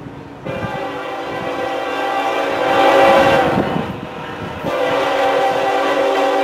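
Locomotive air horn sounding a steady multi-note chord: one long blast starting about half a second in, a brief break around four seconds, then a second long blast that keeps on.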